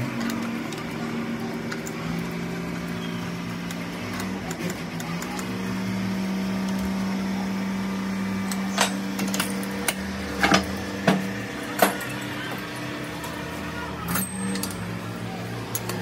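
Metal hand tools and parts clinking against a truck's brake pedal and valve assembly, with several sharp metallic clicks in the second half. Under them runs a steady low hum that shifts pitch a few times.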